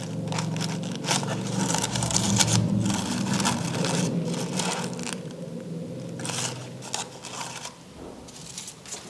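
Craft paper rustling and scraping in irregular strokes as it is handled and pressed into place for gluing. A low hum runs under it for the first five seconds or so.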